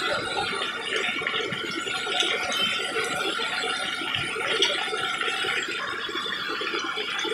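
Chicken pieces deep-frying in hot oil in a large wok-shaped pan, giving a steady crackling sizzle.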